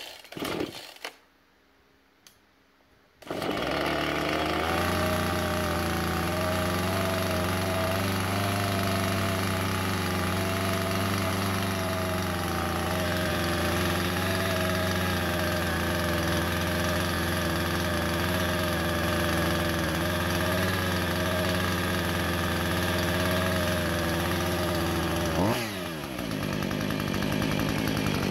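Two-stroke Husqvarna chainsaw started with a few short pulls on the starter cord. It catches about three seconds in and runs steadily at idle. Near the end a quick throttle blip rises and falls, and the saw settles back to a slightly quieter idle.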